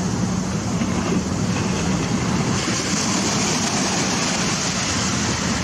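Small ocean waves washing up onto a sandy beach: a steady rushing noise.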